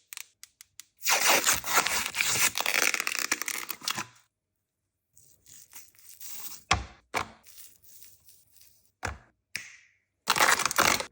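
Packaging being torn and crinkled in two long loud stretches, with several sharp cracks in between, as a tube of refrigerated crescent roll dough is opened.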